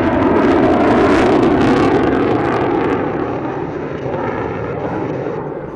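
F-15E Strike Eagle's twin jet engines on a banking flyby: loud rushing jet noise with crackle, loudest in the first couple of seconds, then fading steadily as the jet draws away.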